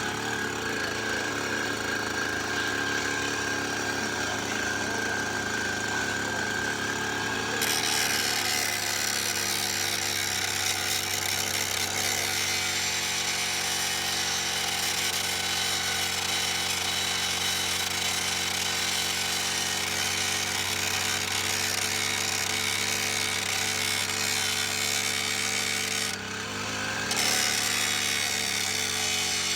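Gas weed eater engine running a 12-inch abrasive metal cutoff wheel. About eight seconds in, the wheel starts grinding against a steel forestry mulcher tooth, giving a steady harsh hiss over the engine. Near the end the grinding stops for about a second, then starts again: a field touch-up of dull mulching teeth.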